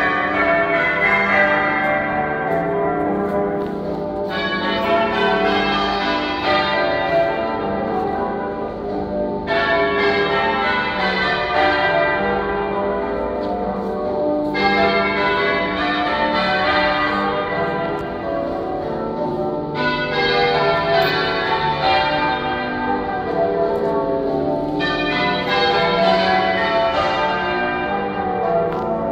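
Church bells change-ringing half-muffled. Each row of clear, open strokes is followed by a row of dull, muffled echo strokes, and the rows alternate about every five seconds. This is the traditional ringing for mourning and remembrance.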